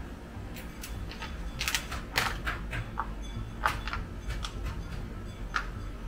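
A resealable plastic coffee pouch being unzipped and handled: a quick, irregular string of sharp crackling clicks and rustles, over a steady low hum.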